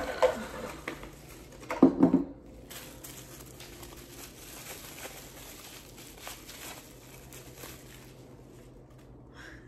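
Clear plastic packaging bag crinkling and rustling as it is handled. A couple of louder bursts of handling noise come near the start and about two seconds in, then lighter crinkling.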